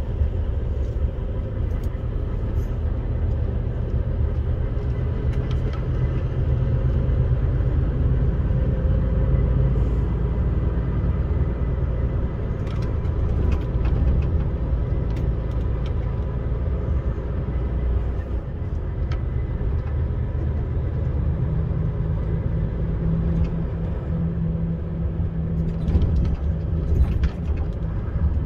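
Low, steady rumble of a vehicle engine and road noise while driving along a narrow lane, with a deeper engine tone that grows stronger in the second half.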